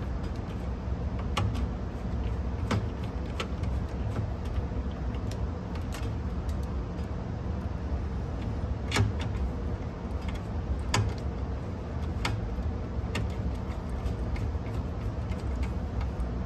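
Scattered small clicks and taps of screws, a screwdriver and metal chassis parts as a cassette deck is screwed back together, the sharpest about nine and eleven seconds in, over a steady low hum.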